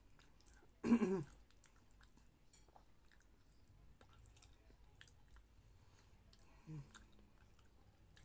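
Close mouth sounds of a person chewing a mouthful of rice and pork menudo, with soft wet clicks and smacks. A brief voiced hum comes about a second in, and a shorter one comes near the end.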